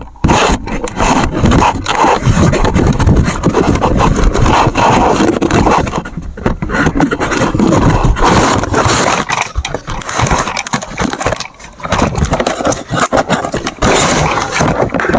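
Hard plastic scraping and clattering, with many irregular clicks and knocks.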